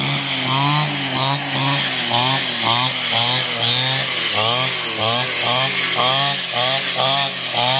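Petrol brush cutter engine running under load. Its pitch repeatedly climbs and dips, about two to three times a second, as the spinning line cuts through tall grass with each swing.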